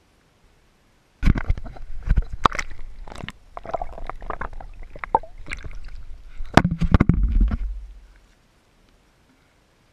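Water splashing and gurgling, heard close up, with many sharp knocks over a low rumble; it starts about a second in and fades out about eight seconds in.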